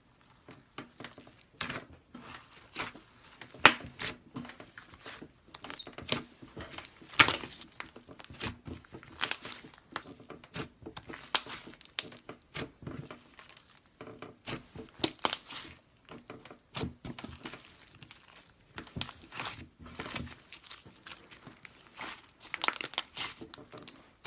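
Slime being squished and stretched, giving a dense run of irregular sharp crackles and pops with a short lull about two-thirds of the way through.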